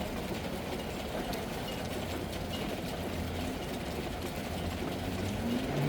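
Steady rain, with a low steady rumble underneath.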